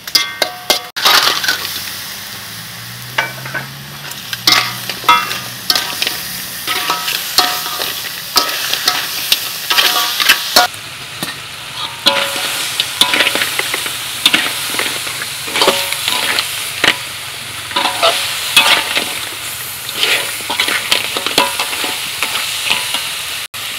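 Chopped crab pieces stir-fried with curry paste in a wok: steady sizzling, with a metal spatula repeatedly scraping and clacking against the wok and the shells.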